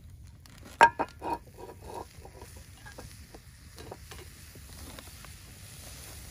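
Cast iron pans and a metal spatula clanking three times in quick succession about a second in, with a brief metallic ring, as the cookware is handled on the cinder blocks; after that, light crackling from the wood fire.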